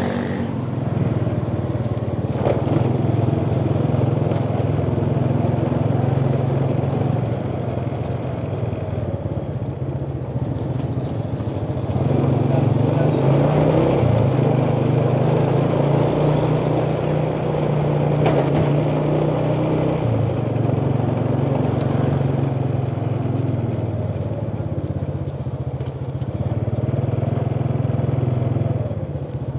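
Motorcycle engine running while riding in city traffic, its pitch rising and falling with the throttle, with a few short clicks along the way.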